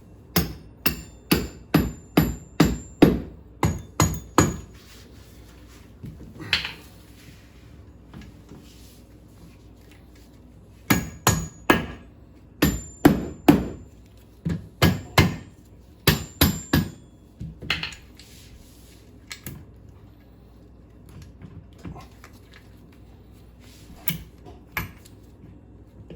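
Rubber mallet tapping a hydraulic trim ram's mounting bolt on a stern drive to loosen it. The blows come in runs of quick taps, about two a second, with pauses between the runs.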